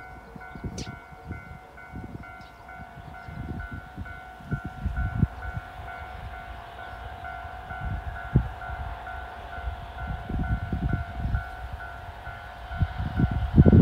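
Railway level-crossing alarm ringing, an electronic bell repeating about twice a second, over gusts of wind buffeting the microphone. The low rumble and buffeting grow stronger near the end as a train approaches.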